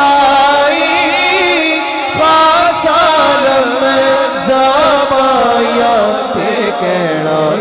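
A man chanting Islamic devotional verse in a drawn-out melodic line whose pitch wavers and glides, with other voices joining in underneath.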